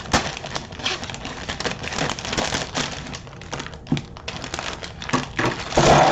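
Plastic LEGO parts bags being handled and torn open, crinkling, with small plastic LEGO pieces clicking and rattling against each other, and a louder clatter near the end as pieces spill out.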